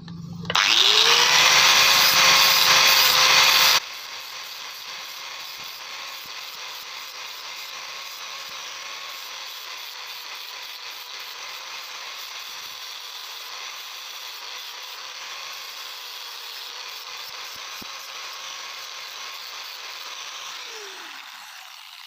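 A small electric power tool's motor spins up and runs very loudly with a harsh hiss for about three seconds. It then drops abruptly to a steadier, quieter whir, and winds down with a falling pitch near the end.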